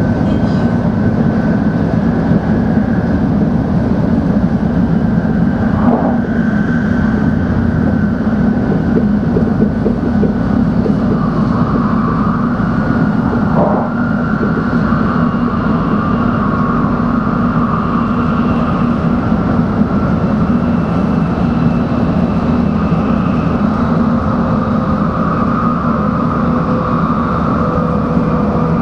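Running noise of a Tokaido Shinkansen Nozomi heard inside the car at speed: a steady rumble with a high whine over it. There are two brief clicks along the way.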